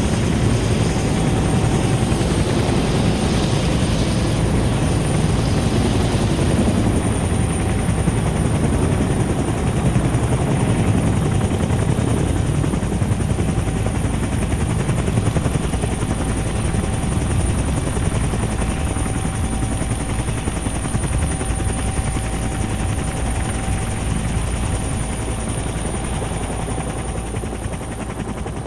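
Helicopter hovering, its rotor and engine running steadily, getting gradually quieter over the second half.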